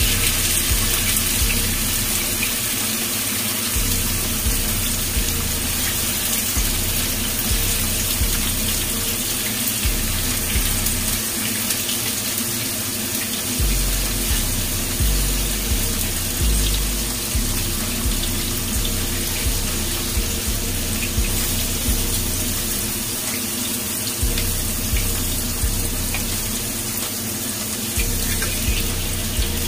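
Tofu frying in hot oil in a nonstick frying pan: a steady, dense sizzle.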